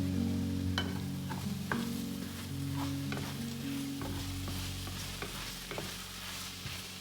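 Food sizzling in a frying pan, stirred with a utensil that clicks against the pan now and then, with the sizzle growing about halfway through. Soft background music with sustained low notes plays underneath.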